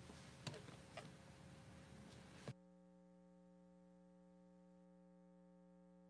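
Faint room tone with a few small clicks, then a sharp click about two and a half seconds in, after which a faint, perfectly steady buzzing tone holds: the livestream's audio stalling as the feed freezes.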